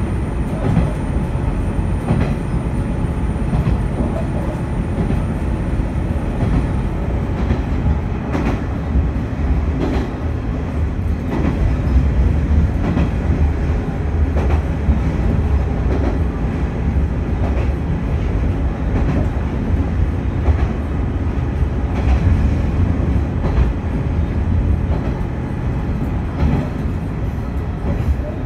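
Diesel railcar running along the track, heard from inside the car: a steady low rolling and engine drone, with irregular clicks as the wheels cross rail joints. A faint high whine stops about seven seconds in.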